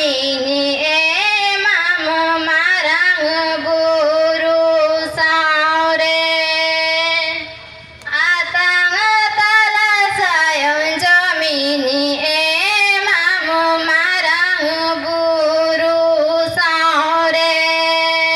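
A woman singing solo into a microphone over a PA, holding long, wavering notes in two phrases with a short breath break about seven and a half seconds in.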